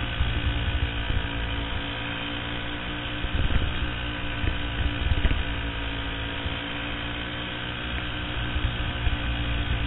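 Racing kart engine running at a steady pitch under way, heard from the onboard camera, with wind buffeting on the microphone. There are a few louder gusts of buffeting between about three and a half and five and a half seconds in.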